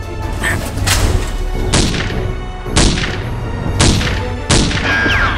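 Background music with five sharp thuds about a second apart.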